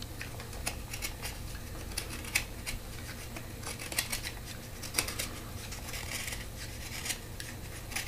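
Utility knife paring thin shavings off the rim of an ash spoon bowl: short, irregular scraping cuts, a few at a time.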